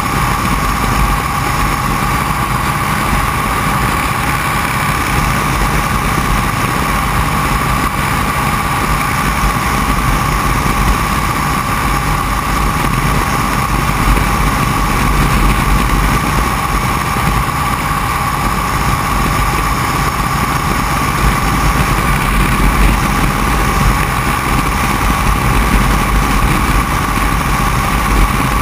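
Open-cockpit biplane's engine and propeller running steadily in level flight, with the rush of wind over the microphone.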